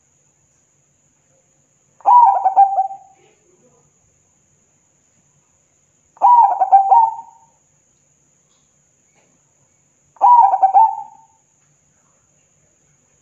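Zebra dove (perkutut) cooing song: three phrases about four seconds apart, each a quick run of soft cooing notes lasting about a second.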